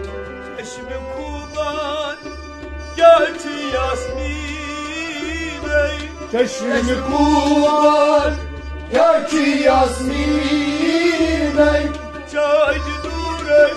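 Kashmiri Sufi devotional song: a male voice singing with vibrato to a harmonium and bowed sarangi, over a steady low drum beat.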